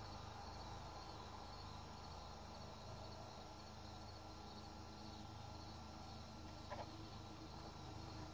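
Faint crickets chirping steadily outdoors, with a brief soft click about seven seconds in.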